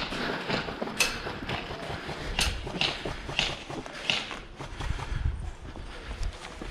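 Footsteps of airsoft players moving quickly on hard ground, a run of short knocks with a sharp one about a second in and steps roughly half a second apart after that.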